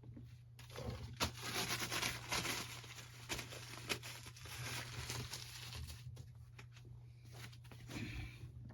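Packaging crinkling and rustling as it is handled, with several sharp clicks, busiest in the first six seconds.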